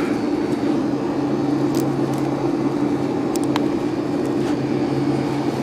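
A steady mechanical hum with two constant low tones and no change in pitch, with a few faint clicks over it.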